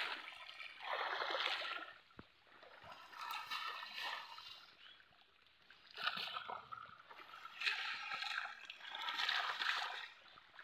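Pond water splashing and sloshing in about five separate bursts as a drag net is hauled through the shallows.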